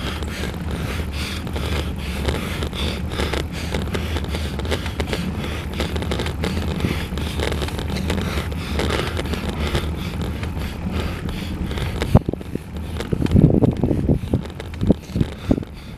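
Wind rushing over the camera microphone of a road bicycle riding uphill, mixed with tyre and road noise on the asphalt. About twelve seconds in, the steady rush eases and turns into uneven gusts.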